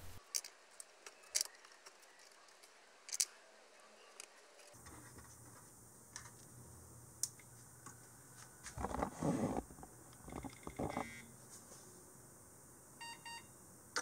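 Quiet handling sounds: a few sharp clicks and scrapes as the SRAM cache chip's pins are cleaned and the chip is pushed back into its socket, then louder rustling knocks a little past the middle. Near the end comes a short electronic beep from the 386 mainboard as it boots and reports the cache bad.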